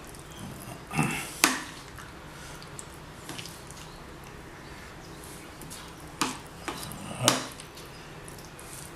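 A spoon stirring a thick mixture of egg, cream and grated cheese in a ceramic bowl, with a few sharp clinks of the spoon against the bowl, about a second in and again around six to seven seconds in.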